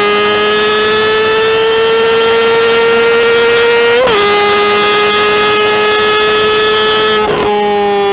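Motorcycle engine running at high revs under full throttle, its pitch slowly climbing, with two quick upshifts about four and seven seconds in.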